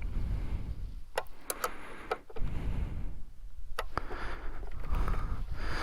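A few separate light metallic clicks of a 10mm spanner working on a loose bolt on a dirt bike, as it is tightened, over a steady low rumble.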